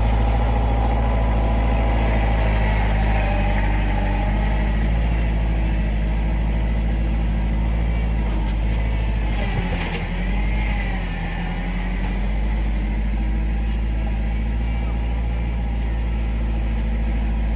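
Tractor engine running steadily; about ten seconds in its pitch sags and then recovers, as when it takes on load.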